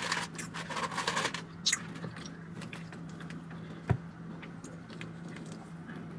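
Food handling and eating noises at a table while picking up a fried chicken wing: crinkling and rustling for about the first second and a half, a brief scrape, then one sharp knock a little past the middle, over a steady low hum.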